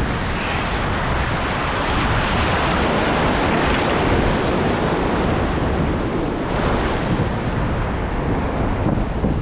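Surf washing in over the shallows of an ocean beach, with steady wind rumbling on the microphone.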